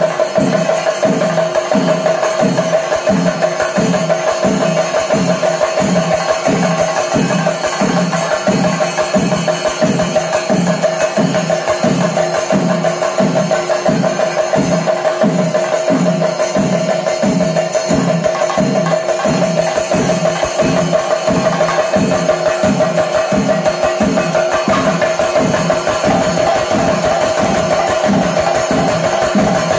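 Thayambaka ensemble playing: chenda drums beaten in a dense, continuous roll over a steady low beat of roughly two strokes a second, with a constant bright ring above.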